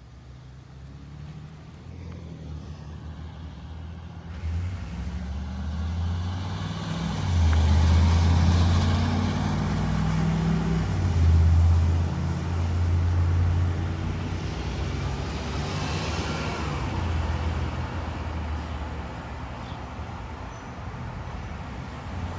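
Fire truck's diesel engine rumbling, growing louder to a peak around the middle, then slowly easing off.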